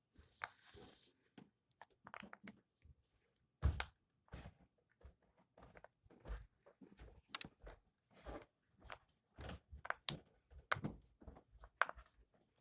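Silicone heart-shaped pop-it fidget toy, its bubbles pressed through one after another with soft, irregular pops that come faster and closer together in the second half.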